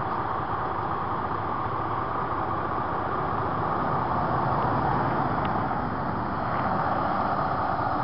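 Road traffic noise: a car-carrier truck's engine running steadily as it moves along the road. A pickup truck drives past about halfway through, and the sound swells briefly.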